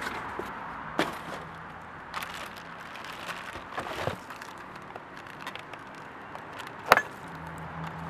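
Plastic wrapping crinkling and rustling as hands handle the packed parts of a steel hitch bike rack, with a few sharp clicks and one loud snap about seven seconds in.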